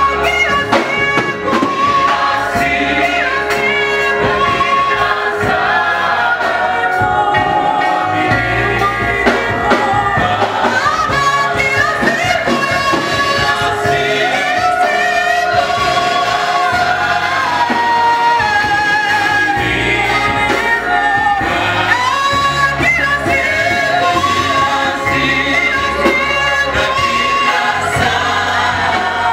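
Church gospel choir of mixed voices, mostly women, singing through microphones, with low bass notes underneath.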